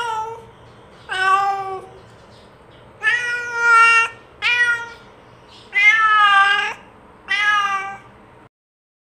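Domestic cat meowing, six meows in a row about a second apart, a couple of them drawn out. The sound cuts off suddenly near the end.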